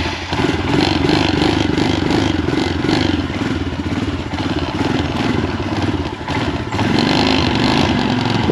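Motorcycle engine running as the bike is ridden, over a steady rushing noise; it dips briefly about six seconds in, then comes back a little louder.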